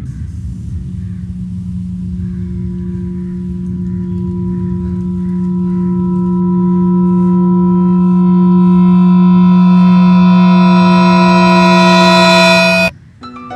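A steady droning musical tone, a suspense riser, swelling louder and gaining higher overtones over about twelve seconds, with a low rumble beneath at first, then cut off suddenly near the end.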